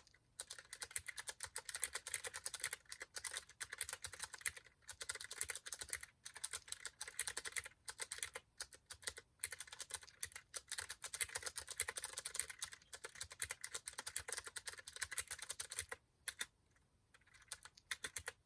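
Typing on a Mistel 60% split mechanical keyboard with clicky Cherry MX Blue switches: a fast, dense run of keystroke clicks with brief pauses, and a longer pause of about a second and a half near the end.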